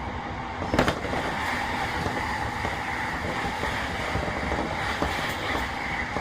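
E233 series 3000 electric train running at speed, heard inside the car: steady rumble and rail noise, with a sharp bang about a second in.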